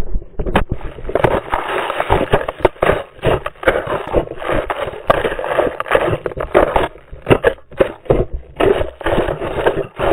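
A snowboarder tumbling and sliding through snow in a crash, heard from a body-mounted action camera: a loud, irregular run of knocks, thuds and scraping as snow, board and body hit and rub against the camera housing.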